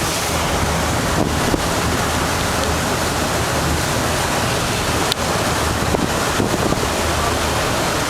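Wind buffeting the microphone and water rushing past a moving ferry, over the low steady drone of the ferry's engine.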